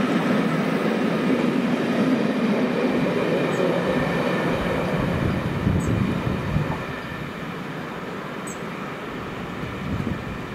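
A rake of railway passenger coaches rolling past on the track, a steady rumble of wheels on rail that dies down about seven seconds in as the last coach draws away.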